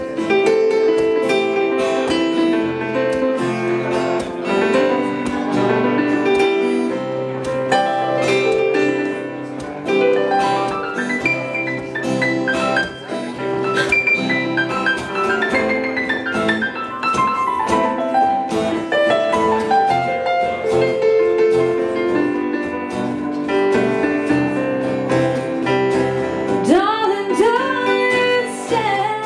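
Live acoustic guitar and keyboard playing together in a steady song accompaniment, with a melody line that slides in pitch near the end.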